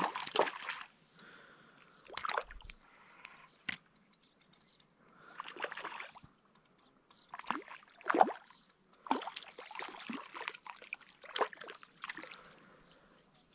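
Hooked rainbow trout splashing at the lake surface as it is played in to the bank, a string of short irregular splashes with the loudest about eight seconds in.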